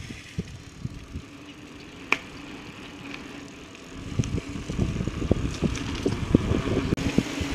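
Mountain bike rolling over a paved trail, heard through a handlebar-mounted camera: tyre noise with scattered knocks and rattles from the bars and mount. About four seconds in, as the bike rolls onto a bridge deck, the thumps and rattling get louder and more frequent.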